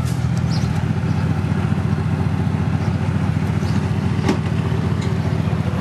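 An engine idling steadily, a low even hum, with a single sharp click about four seconds in.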